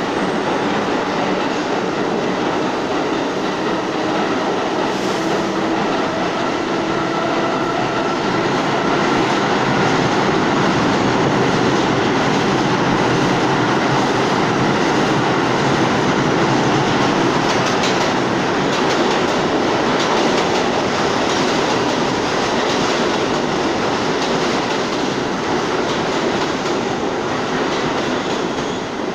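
New York City subway trains running through an underground station: a steady loud rumble and clatter of steel wheels on the rails, with a faint wheel squeal. It grows louder about eight seconds in, and near the end a train passes close along the platform.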